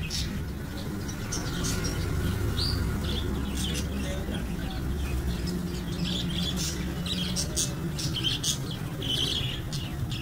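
A flock of caged budgerigars chirping and twittering in many quick, short, high calls, with a steady low rumble underneath.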